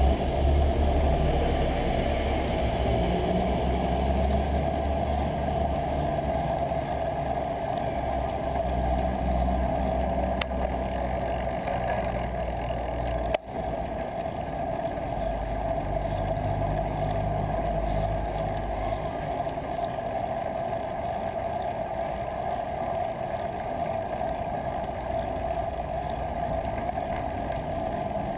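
Steady rumble of city traffic and riding noise picked up by a bicycle-mounted GoPro Hero 2 while riding, with a low engine drone from vehicles nearby. A sharp click cuts in about thirteen seconds in.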